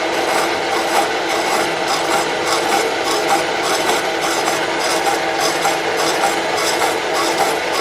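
Slitting saw spinning and cutting a slot into a small metal part on a milling machine, a steady cutting noise with a faint, regular pulse.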